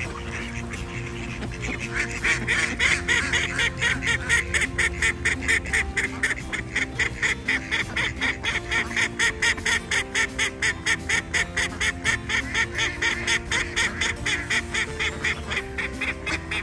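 Mallard quacking in a rapid, even series of about four quacks a second, starting about two seconds in and running on for over ten seconds, over background music.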